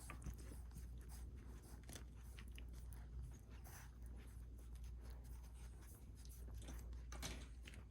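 Faint soft clicks and rustling of 17-day-old Welsh Springer Spaniel puppies suckling at their mother, over a steady low hum.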